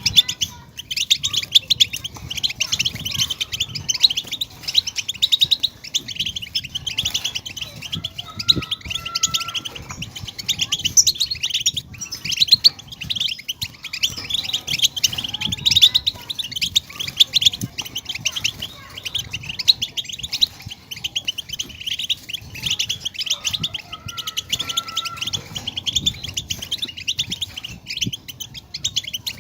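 European goldfinches singing: a dense, unbroken stream of rapid high twitters and trills, with a short lower whistled note a few times.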